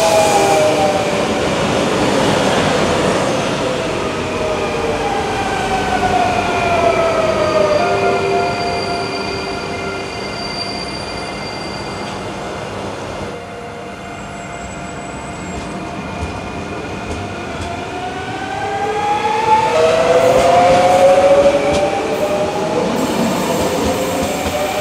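Double-deck electric multiple units at a platform: the traction-motor whine falls steadily in pitch over the first several seconds as a train slows, settles to a quieter hum, then rises again in pitch from about two-thirds of the way through as a train accelerates, with some wheel squeal on the rails.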